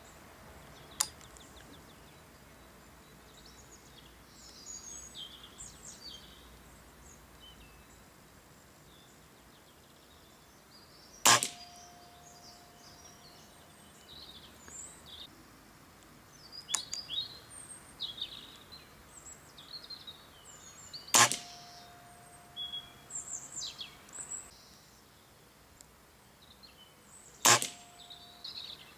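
Weihrauch HW97K .177 spring-piston air rifle firing three shots, about ten and then six seconds apart; after each shot a ringing tone lasts about two seconds. A sharp click about a second in, and songbirds chirping throughout.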